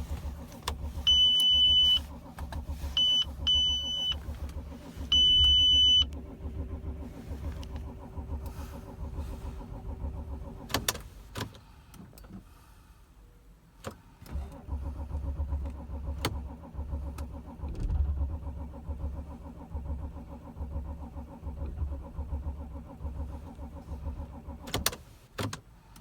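Audi A6 2.7 TDI V6 diesel cranking on its starter without catching, a cold no-start: an even low pulsing for about ten seconds, a pause, then a second long crank that also fails. Three loud electronic beeps sound near the start.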